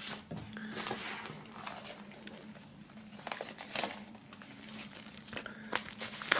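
Clear plastic shrink-wrap film crinkling and rustling as a vinyl record sleeve is pulled out of it, with scattered sharp crackles.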